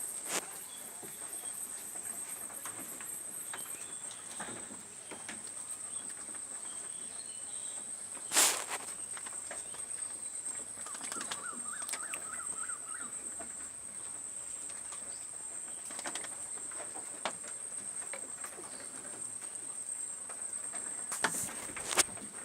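Rural outdoor ambience: a steady high-pitched insect drone, with scattered small clicks and knocks, one sharp knock about eight seconds in, and a short warbling bird call a few seconds later.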